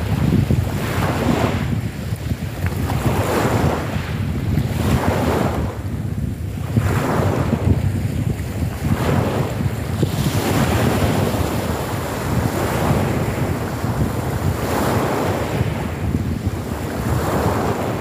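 Small choppy sea waves breaking and washing over a pebble beach, a new surge every second or two, over steady wind buffeting the microphone.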